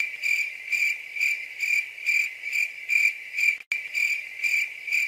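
Crickets chirping in a steady, even rhythm of about two chirps a second, with a brief dropout a little after halfway. It is the stock comic 'crickets' sound effect for an awkward silence after a joke.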